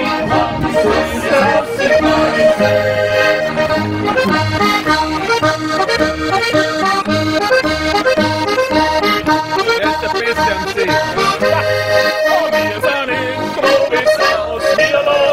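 Traditional Austrian folk dance music played live by a small band, led by an accordion over a steady, even bass beat.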